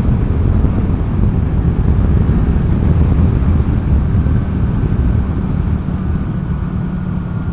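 Honda Grom's small single-cylinder engine running steadily as the motorcycle rides along, under heavy wind rumble on the helmet-mounted microphone.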